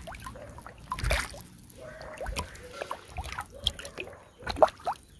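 Water in a fish tank dripping and plopping with small irregular splashes at the surface, the loudest near the end.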